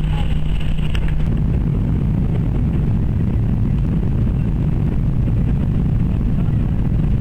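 Airplane engine drone: a loud, steady low rumble. A steady hum under it stops about a second in.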